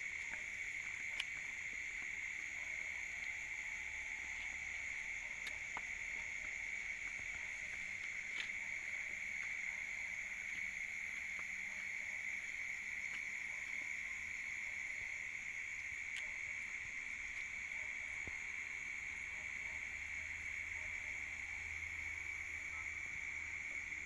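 Night insects chorusing: a steady, unbroken high-pitched trill, with a few faint clicks.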